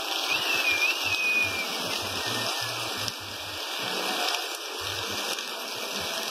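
Heavy rain pouring down on a street: a steady hiss of rainfall and rushing runoff water.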